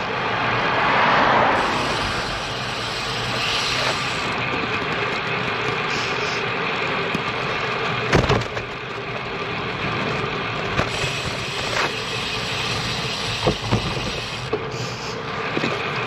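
Road bicycle riding on pavement: steady tyre and wind noise, swelling about a second in, with a sharp knock about eight seconds in and a few lighter clicks near the end.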